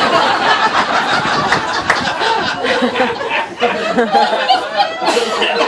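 A roomful of dinner guests laughing together at a joke's punchline, loudest at the start and mixing with scattered talk in the later seconds.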